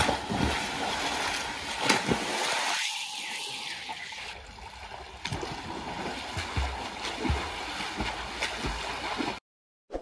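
Water rushing and gurgling in a steady stream, with a few low knocks, cutting off suddenly near the end.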